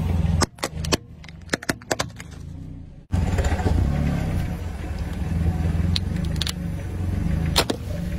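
A car tyre crushing objects on asphalt. First comes a quieter stretch of several sharp plastic cracks, as small plastic toy boats are run over. Then, about three seconds in, a low car engine hum comes in while the tyre bears down on a slab of ice, with a few sharp cracks as the ice breaks.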